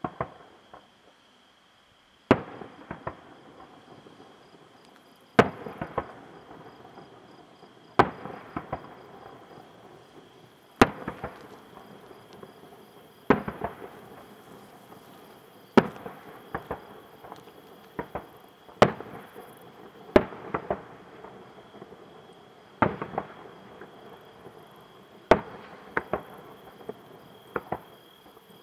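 Aerial firework shells bursting, a sharp bang about every two to three seconds, each followed by a few smaller cracks and a rolling echo.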